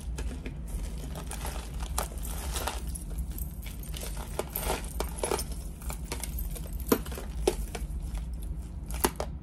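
Metal jewelry pieces clinking and jangling as they are handled and sorted by hand, with a few sharper clicks in the second half.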